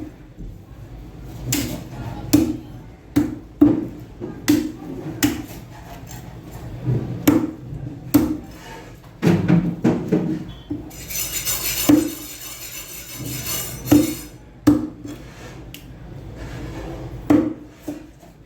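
A knife chopping snapper on a wooden cutting block: irregular heavy chops, each a sharp knock with a dull thud, about one every half second to a second. For about three seconds in the middle a hissing scraping noise takes over.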